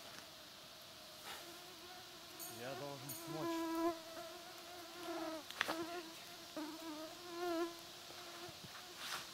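A flying insect buzzing close to the microphone, its steady whine wavering in pitch and swelling louder and softer as it moves about. A few short knocks and scrapes from climbing the birch trunk.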